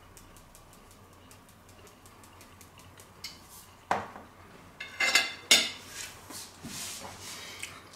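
Cutlery clinking and scraping on a plate, with several sharp clinks and short scrapes in the second half.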